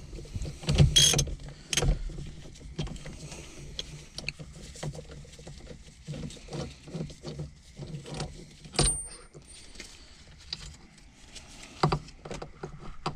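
Clunks, rattles and knocks of a factory steering wheel being pulled, wiggled and tapped to work it loose from its steering shaft, with the retaining nut left loosely on. A few louder knocks stand out, about a second in, near the middle, and near the end.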